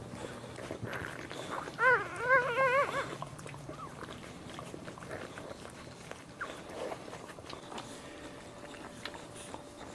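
A dog whining: a cluster of short, wavering, high-pitched cries about two seconds in.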